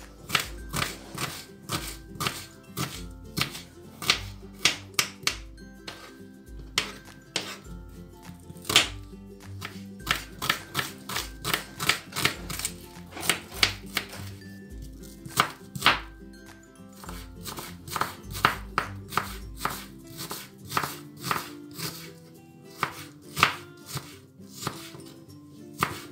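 Kitchen knife chopping an onion on a wooden cutting board: a run of sharp knife taps on the board, a few a second, with short pauses, over background music.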